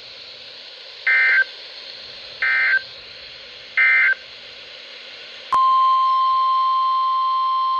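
Three short Emergency Alert System SAME digital data bursts, evenly spaced about a second and a half apart: the end-of-message code closing one warning. After a click, a steady NOAA Weather Radio 1050 Hz attention tone starts, the alert signal for the next warning.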